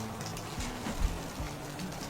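Background music with low held notes that change every half second or so, over a faint crackling, pattering noise, with a single louder knock about a second in.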